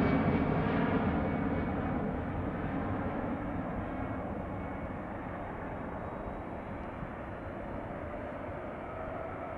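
Jet engines of an Airbus airliner climbing out after takeoff, a steady rumble that fades as the aircraft draws away. The higher part of the sound dies away first.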